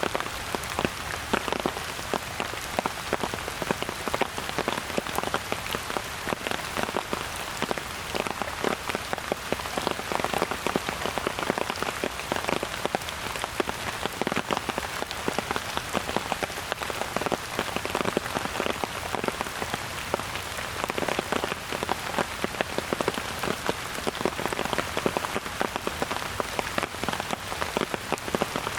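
Steady rain falling, with many close, sharp drop hits over a continuous patter.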